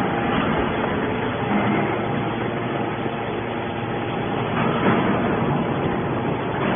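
Hydraulic aluminium-can baler running, giving a steady mechanical noise with a faint hum.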